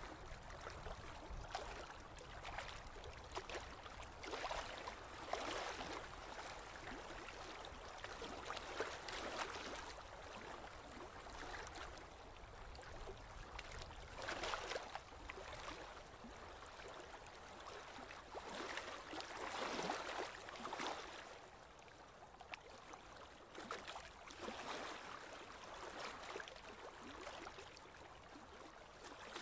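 Water splashing and gurgling against a small boat's hull, in irregular swells every second or two.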